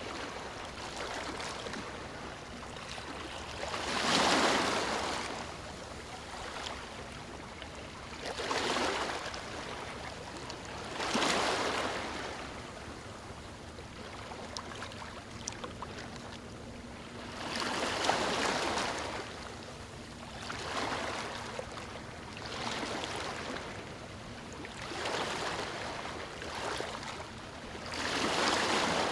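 Ocean waves breaking on a beach. A wave crashes every few seconds over a steady wash of surf.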